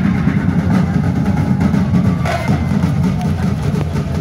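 Street-dance festival music driven by a percussion ensemble: drums beating a steady rhythm.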